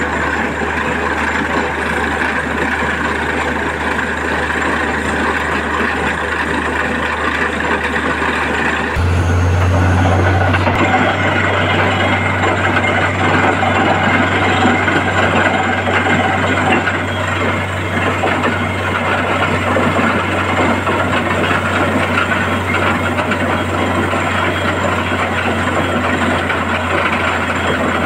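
Truck-mounted borewell drilling rig running while drilling a tubewell, with a steady, loud engine drone. About nine seconds in the sound shifts and a deeper hum swells for a couple of seconds before settling.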